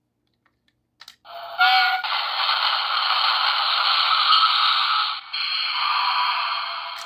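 Sound effects from a Plarail EF63 toy locomotive's small built-in speaker: a click about a second in, then a thin, tinny train sound with a brief tone near its start, a short break about five seconds in, and then it carries on slightly quieter.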